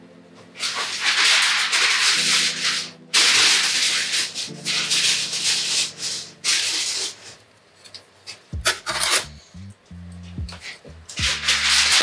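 Loud, rasping rubbing strokes, three long ones in the first seven seconds and a shorter one near the end, over background music that picks up a bass line about eight seconds in.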